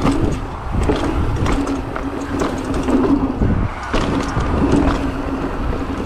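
Mountain bike rolling downhill on a rocky dirt trail and over a wooden plank section: tyre noise on gravel with frequent knocks and rattles from the bike. A steady hum runs underneath and drops out a couple of times.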